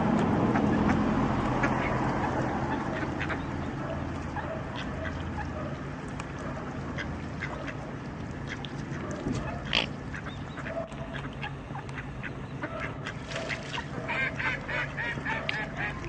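Mallard ducks quacking in short scattered calls, with one louder call about ten seconds in and a quick run of quacks near the end. A low rumble underneath fades over the first few seconds.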